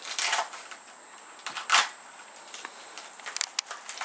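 Knife cutting and peeling the fibrous outer layers off the heart of a cabbage palm (swamp cabbage), the layers crackling and tearing. There are two louder strokes, one near the start and one just before halfway, then a run of small crackles near the end.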